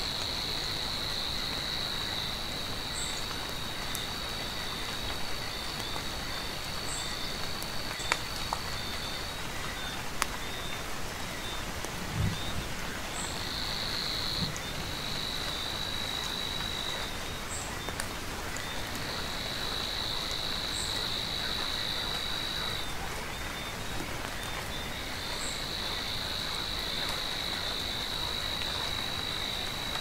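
Steady rain with a high, even animal trill over it. The trill runs in long stretches of several seconds with short breaks, and a brief higher chirp comes every few seconds.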